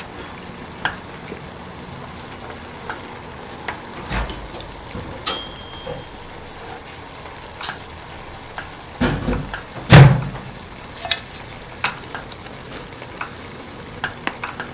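Wooden spoon scraping and knocking in a wide metal pot of ramen stew as dumplings are pushed around: scattered soft clicks, with one louder thump about ten seconds in.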